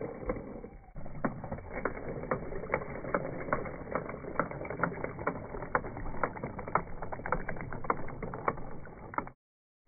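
Toy boat's small motor-driven propeller churning water: a steady rush of water with irregular splashy ticks, cutting off suddenly near the end.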